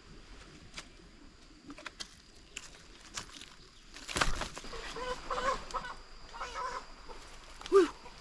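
Chicken clucking and squawking in short bending calls, with a burst of wing flapping about four seconds in and a louder call near the end.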